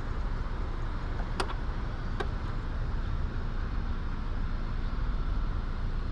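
Steady low outdoor rumble with two sharp clicks a little under a second apart.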